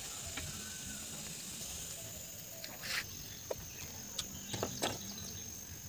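Outdoor ambience: a steady high-pitched insect drone, with a few sharp clicks in the second half.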